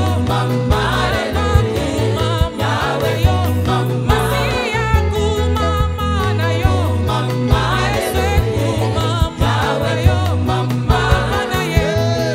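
Gospel group performing live: women singing lead and harmony into microphones over a band with drums, keyboard and guitar. A strong bass line and a steady drum beat run under the voices.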